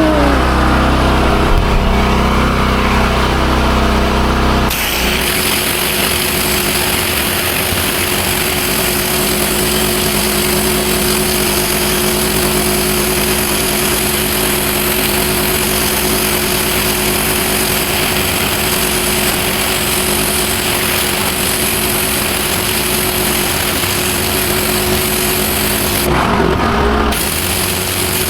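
Petrol pressure washer: the engine runs on its own, then about five seconds in the high-pressure water jet starts, a steady loud hiss of spray on paving over the engine's drone. The spray cuts out briefly near the end, then resumes.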